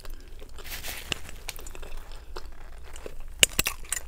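Paper crinkling and rustling as a fast-food burger is handled on its wrapper and a napkin is held, with a few sharp clicks near the end.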